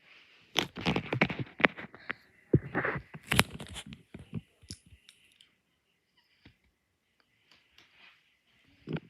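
Handling noise: about four seconds of irregular clicks, crackles and crunches, then a faint steady hiss with a few isolated ticks.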